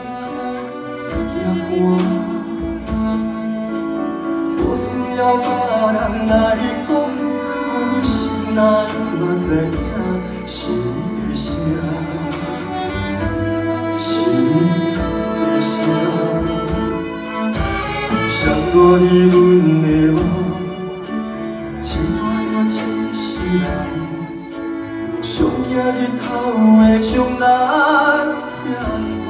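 Male vocalist singing a slow Taiwanese ballad, backed by a small live ensemble of keyboard, violins, cello and drums with steady drum hits.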